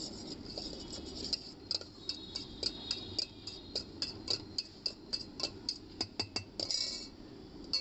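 Steel spoon clinking and scraping against a stainless steel bowl while stirring chana masala as it heats: repeated sharp clinks about three a second, with a longer scrape near the end.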